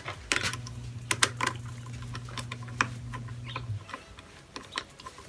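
Irregular small clicks and taps of plastic and metal as a scooter's throttle and switch housing is fitted back onto the handlebar and a screwdriver works its screws.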